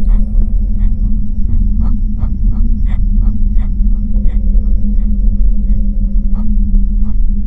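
Horror-film sound design: a loud, low rumbling drone with a steady hum, overlaid by irregular sharp clicks about three a second.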